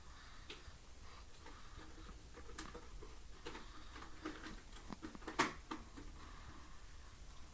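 A 1.5-month-old baby's snoring: faint, irregular little clicks and snuffles of his breathing, with one sharper click about five and a half seconds in.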